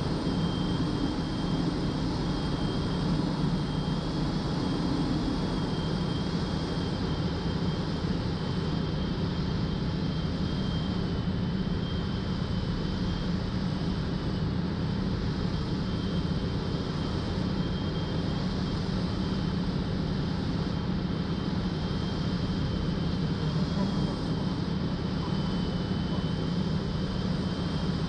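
Van's RV-12's Rotax 912 engine and propeller running at a steady speed, with a thin high whine held over the drone.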